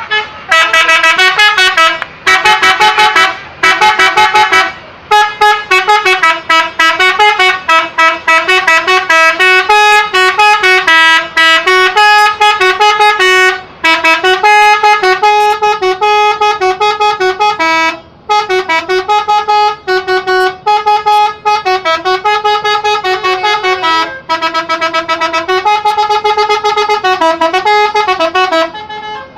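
Bus telolet horn, a multi-tone air horn, playing a long melody of stepped notes, loud, with rapid stuttering blasts in places and short breaks between phrases.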